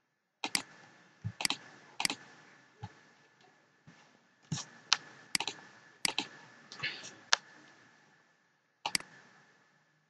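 Computer mouse clicks and keyboard keystrokes, about fifteen sharp separate clicks at an irregular pace, with a short pause a few seconds in.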